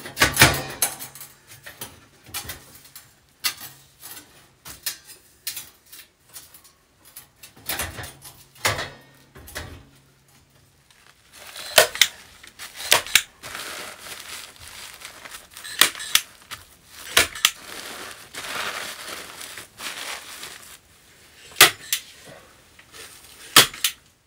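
Irregular metal clicks and knocks as stainless steel stovepipe sections are handled and fitted to a wood stove, with rustling of the foil insulation sheet around the pipe in the middle stretch.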